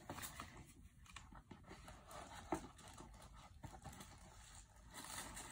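Faint rummaging through a container of rubber bands and small doll accessories: soft rustling with scattered light clicks, a sharper tick at the start and another about halfway through.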